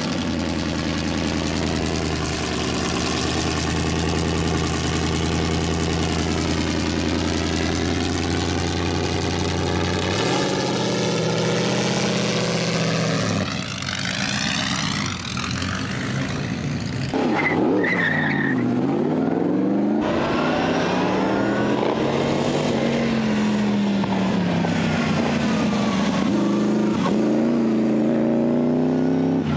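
Alfa Romeo Tipo B (P3) supercharged straight-eight racing engine. It runs at a steady idle for the first ten seconds or so, then is revved in rising and falling sweeps. From about twenty seconds in it runs hard under acceleration, its pitch climbing and dropping repeatedly.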